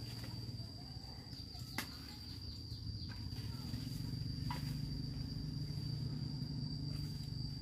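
Insects trilling steadily at one high pitch over a low rumble that grows louder near the end, with a couple of sharp clicks.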